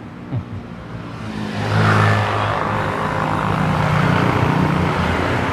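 Motor scooters passing close by on the road, their small engines running. The sound swells about a second and a half in and stays loud.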